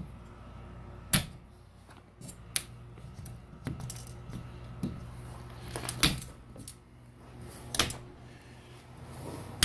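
A handful of sharp clicks and light taps from hands handling the small plastic clips on the aluminum greenhouse frame bars, over a faint steady low hum.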